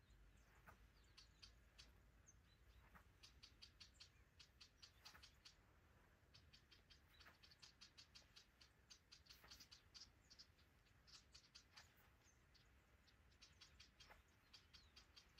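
Near silence: faint outdoor ambience with rapid, high-pitched chirping that comes in short runs throughout.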